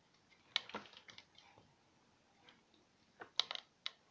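Soft scattered clicks and handling knocks, a cluster about half a second in and a few more around three and a half seconds.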